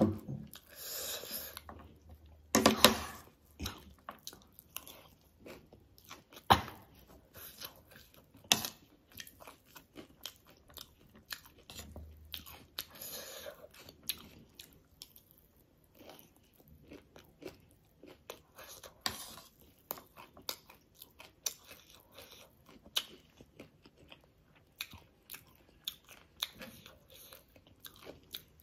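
Close-up crunching and chewing of spicy chatpate (a puffed-rice snack mix) and crisp dhungri (gol finger) fried snacks. Irregular crisp crunches go on throughout, with a few louder bites in the first third.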